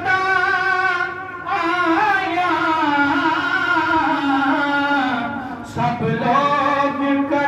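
A single voice singing a slow, drawn-out devotional recitation in long, wavering held notes, pausing briefly for breath about a second and a half in and again near six seconds.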